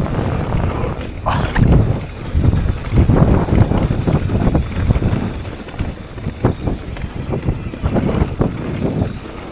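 Wind buffeting the microphone as a mountain bike rides down a rough dirt trail, with frequent knocks and rattles from the bike over the bumps.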